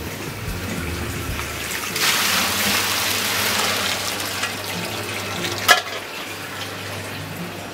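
Spaghetti tossed with a wooden spatula in a hot aluminium frying pan: a loud hiss of sizzling liquid for about two seconds, easing off, then a single sharp knock a little before the end.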